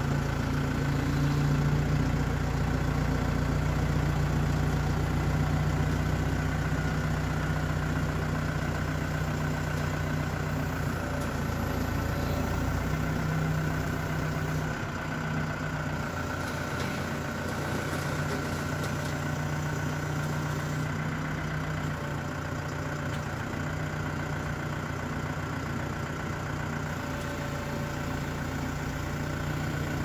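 XCMG XC870BR backhoe loader's diesel engine running steadily under hydraulic load as the front bucket and backhoe arm push down and lift the machine off the ground.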